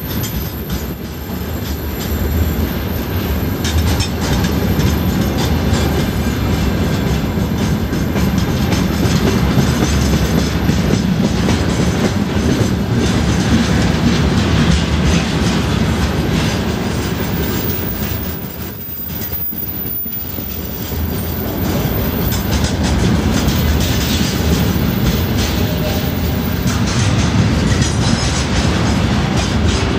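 Container flat wagons of a freight train rolling past close by: steel wheels rumbling and clattering on the rails, with a constant run of clicks. The noise dips briefly about two-thirds of the way through, then picks up again.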